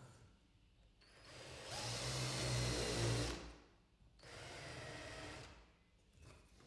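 Cordless drill spinning a countersink bit into a wooden stop, countersinking two screw holes: a first burst of cutting starting about a second in and lasting about two seconds, then a shorter, quieter second burst.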